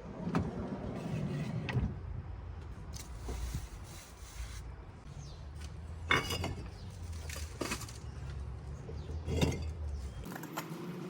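Scattered knocks and scrapes of bricks being handled as a damaged brick wall is taken down, over a low steady rumble.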